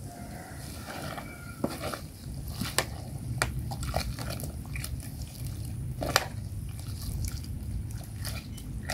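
A metal ladle stirring spinach in a steel pot of boiling water, with sharp clinks of the ladle against the pot over a steady low rumble.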